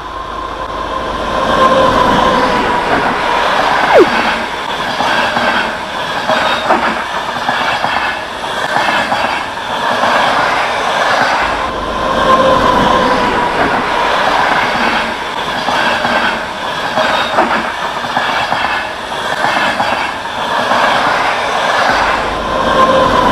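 Train running on the rails, its wheels clattering over rail joints over a steady rumble, with a wavering wheel squeal that comes and goes. The sound builds up over the first two seconds, and there is a sharp click about four seconds in.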